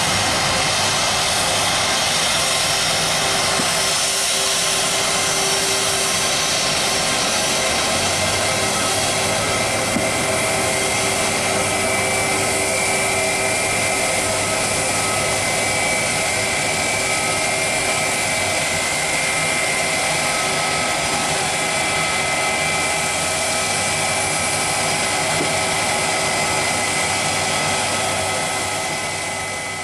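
Boeing jet airliner's engines at departure thrust: a steady, loud jet noise with steady whining tones, fading out near the end.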